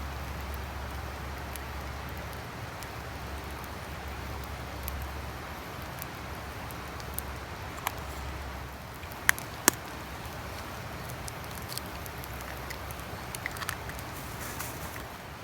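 Campfire burning with a steady hiss and scattered sharp crackles, two louder pops close together about two-thirds of the way in.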